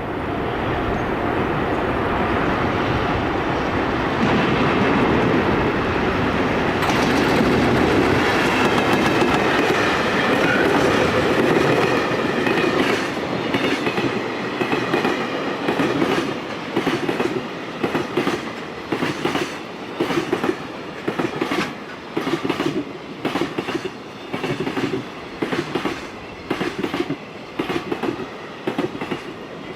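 Electric freight train passing. The locomotive's motors are heard as a steady noise that builds over the first several seconds. Then the wagons' wheels clatter over the rail joints in regular groups of knocks, about one group a second.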